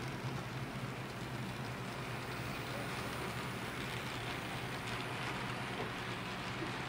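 HO scale model train running along the track: a steady rushing rumble of wheels on rail, with a constant low hum underneath.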